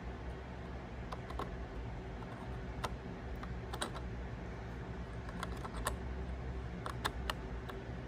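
Scattered light clicks and taps as fingers press and shift a laptop processor chip, an Intel i7-2670QM, into its socket, some clicks coming in quick pairs. A steady low hum runs underneath.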